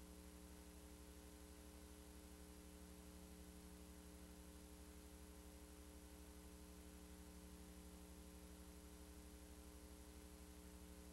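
Near silence: a faint, steady hum with hiss and no other sound.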